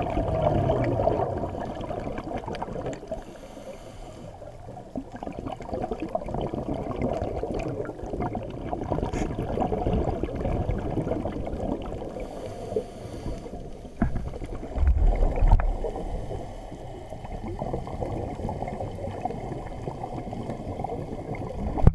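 Underwater sound picked up inside a camera's housing: a muffled, crackly rushing and gurgling of water and a scuba diver's exhaled bubbles, swelling and easing, with a deeper rumble about fifteen seconds in.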